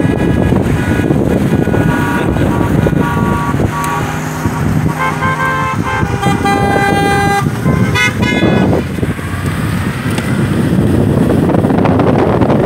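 Car horns honking several times over steady engine and road noise from a vehicle on the move: short notes at changing pitches in the first few seconds, then one longer blast about five seconds in and a last short one near nine seconds, after which only the engine and road noise remain.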